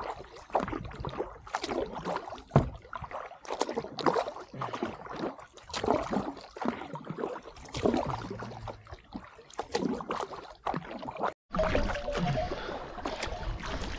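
Kayak paddle strokes and choppy waves splashing against the hull, in irregular splashes every second or so, over wind rumbling on the microphone. The sound cuts out for an instant near the end.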